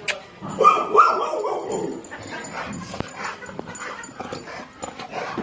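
A dog barking, two loud barks about a second in, followed by quieter yips.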